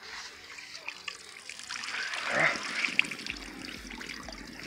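Water trickling and dripping from a wet carp weigh sling as it is lifted on a hanging dial scale, with a few small clicks of the sling and hook.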